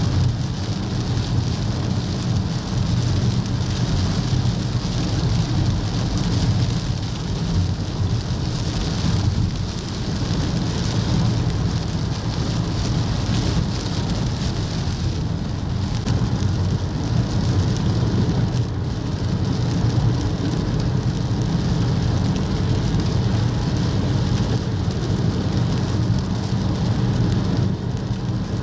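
Torrential rain falling in a steady hiss over a constant low rumble.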